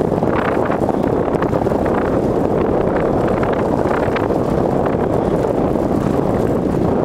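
Wind rushing over the microphone of a camera on a moving bicycle, a loud steady rumble, with a few brief rustles from the tyres rolling over fallen leaves on the pavement.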